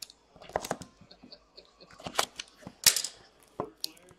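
Trading-card box being handled and opened: a handful of sharp cardboard-and-plastic clicks and taps with short rustles between them, the loudest about three seconds in.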